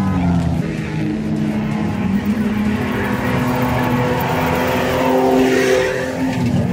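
Engines of off-road 4x4 racing prototypes running hard as they race along a dirt track, a loud steady engine drone whose pitch drops near the start and again near the end.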